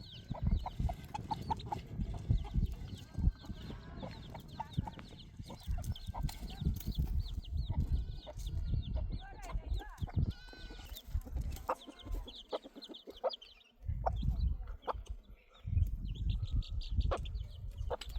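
Chickens clucking and chirping in many short, repeated high calls, over a low rumbling.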